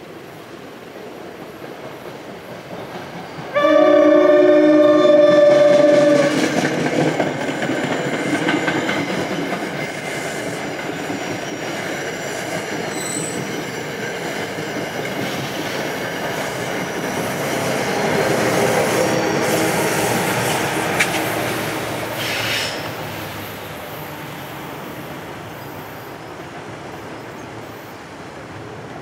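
Diesel commuter train sounding one long horn blast about three seconds in, then passing close by with a heavy rumble and clattering wheels over the rail joints, loudest a little past the middle before fading away.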